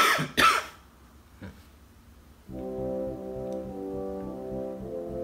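A short burst of speech at the start, then the show's opening music comes in about halfway through: slow, held chords of several sustained notes that change every second or so.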